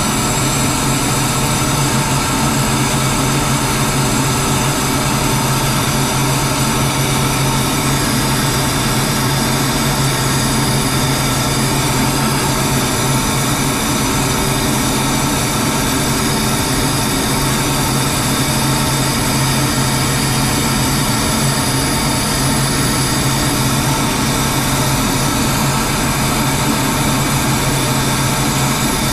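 Steady in-flight aircraft noise heard on board a chase plane: a constant engine drone with steady whining tones over rushing air, unchanging throughout.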